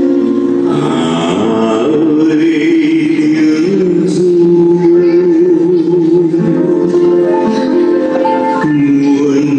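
A song sung over musical accompaniment, the voices holding long notes with a slight vibrato.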